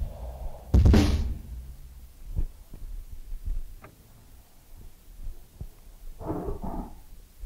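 Sparse low thuds and faint clicks in a quiet stretch of an experimental noise recording, with one loud crash about a second in and a short rough burst near the end.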